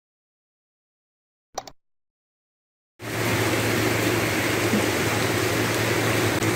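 Silence apart from one short sound-effect blip about one and a half seconds in, then, cutting in abruptly about three seconds in, the steady loud hiss of heavy rain and floodwater on a flooded street, with a steady low engine hum underneath.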